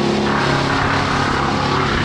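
Chainsaw engine running steadily under throttle, its pitch shifting about half a second in.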